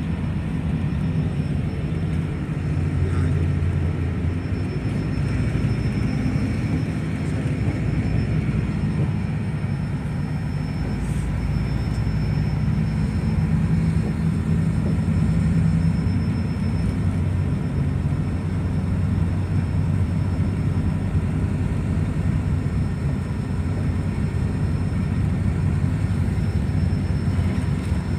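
City bus in motion, heard from inside the passenger cabin: a steady low rumble of engine and road noise.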